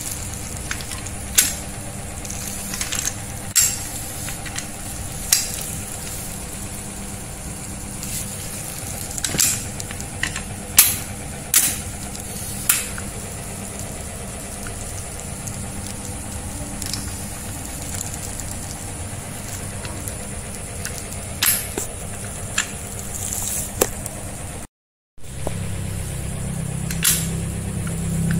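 Scattered light clicks and clinks of metal parts being handled as an angle grinder is fitted and bolted into its cut-off stand, about a dozen in all, over a steady background hum.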